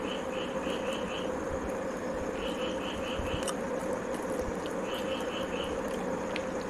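Insect chirping in short trains of four or five quick pulses, a train every two seconds or so, over a steady hum and background hiss.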